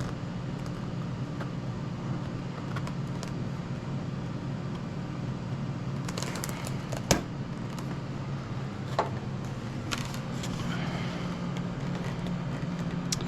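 Steady low hum with a few light clicks and taps from handling small parts, the sharpest about seven seconds in and two more near nine and ten seconds.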